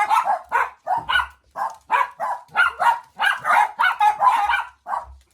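A dachshund barks repeatedly in short, sharp barks, about three a second, without a pause.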